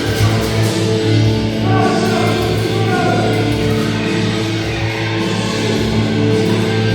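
Rock music soundtrack with a singing voice, loud guitars and a steady heavy bass, cutting off suddenly at the end.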